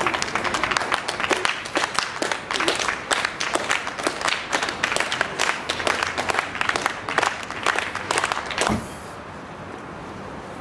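A crowd applauding, many hands clapping densely; the clapping cuts off abruptly with a single low thump about nine seconds in, leaving quiet room noise.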